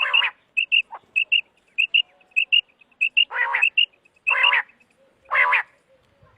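Common quail calling: a rapid run of short, high, paired notes repeated about every half second, broken by four louder, harsher calls.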